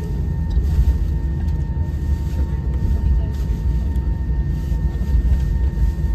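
Cabin noise inside an Airbus A320-family jet taxiing after landing: a steady low rumble from the engines and rolling gear, with a faint steady whine on top.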